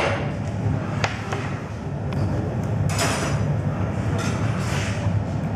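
Steel glassblowing pipe knocking and scraping on the arms of the glassblower's bench as it is set down and turned, a few sharp clanks over a steady low hum, typical of the glass furnace.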